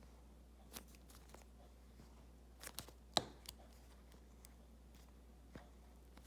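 Scissors snipping into a soft foam squishy toy: a few scattered, quiet snips and clicks, the sharpest a little over three seconds in.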